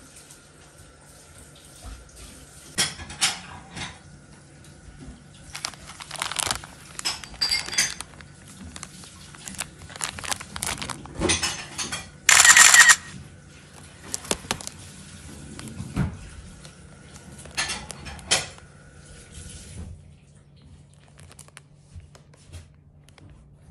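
Plastic-wrapped food packages being handled: irregular crinkling and light knocks, with one louder crinkle lasting about a second roughly halfway through, over a faint steady hum.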